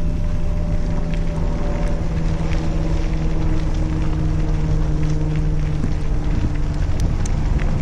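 A recumbent trike rolling along a dirt trail: tyre rumble and wind on the microphone, with a steady low hum underneath.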